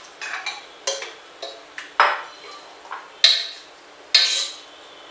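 Metal spoon stirring inside an aluminium pressure cooker, knocking and scraping against the pot's sides and bottom in about eight irregular clinks, the loudest two near the end. It is mixing soaked wheat and rice with water.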